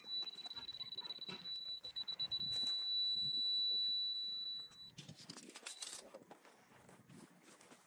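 A steady high-pitched electronic tone sounding without a break, then cutting off suddenly about five seconds in, over scattered knocks and handling noise.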